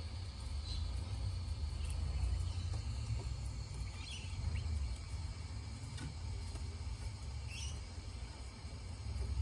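Outdoor ambience in a backyard duck pen: a steady low rumble with a few faint, short, high chirps scattered through it.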